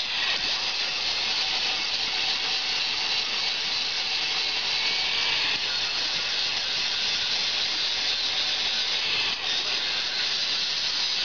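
Corded angle grinder running with its disc grinding against steel, a steady hiss that dips briefly about nine seconds in.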